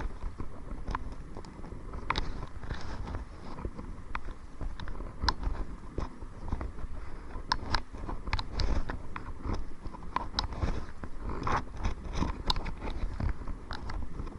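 Wind rumbling on the microphone, with irregular small clicks, knocks and splashes as a kayak is paddled into the wind.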